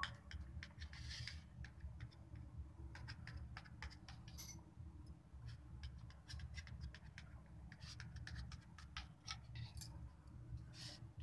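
Faint scratching and light clicks of a knife blade scoring soft barfi and scraping the steel plate beneath it, over a low steady hum.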